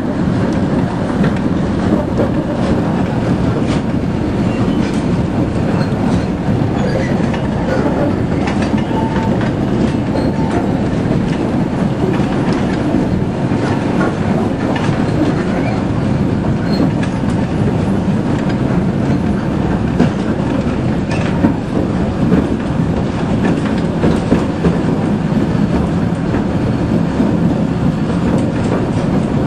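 A 2 ft 6 in narrow-gauge diesel locomotive running along the line, heard from beside its cab: a steady engine and running noise with the wheels clicking over the rails.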